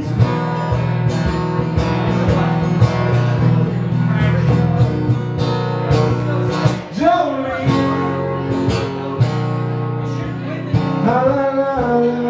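Live solo acoustic guitar, strummed steadily. A man's voice sings over it at the microphone about seven seconds in and again near the end.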